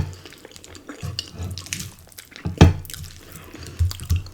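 Close-miked mukbang eating sounds: wet mouth clicks and smacks of chewing, with two sharp knocks, one at the start and one about two and a half seconds in.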